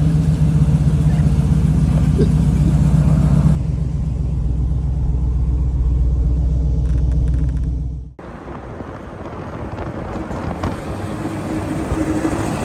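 Engine of a lifted, stretched square-body truck running steadily, loud at first, then a quieter rumble from about three and a half seconds in. After a sudden cut about eight seconds in, the truck is driving on the road and its engine and tire noise build steadily.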